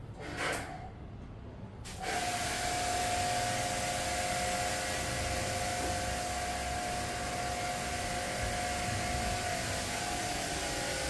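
Electric pressure-washer pump switches on about two seconds in and runs steadily with a whine and a hiss of spraying water, washing the air conditioner.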